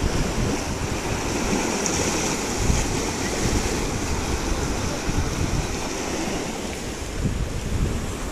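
Wind buffeting the microphone over a steady rush of water.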